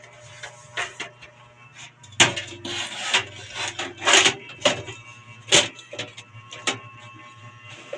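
Hands handling computer hardware: irregular clicks, knocks and rubbing scrapes. The loudest knocks come about two, four, five and a half and near seven seconds in.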